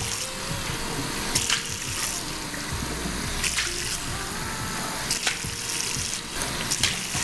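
Water running from a tap into a sink, with a splash about every one and a half to two seconds, as of water being scooped up for face washing: an added sound effect.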